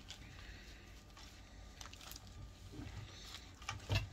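Quiet background hum with a few faint rustles and clicks, and one short knock near the end.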